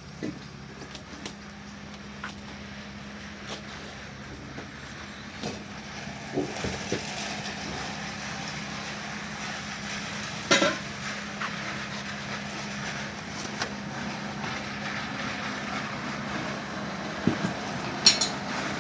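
Steady low hum with scattered metallic clanks and knocks from a cargo van being unloaded at a loading dock. One sharp knock comes about ten seconds in, and a short clatter near the end.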